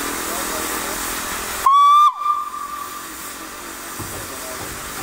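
A steam locomotive's whistle gives one short, loud blast about two seconds in. Its pitch rises slightly and then sags as it cuts off, and it lingers briefly as an echo. A steady hiss runs underneath throughout.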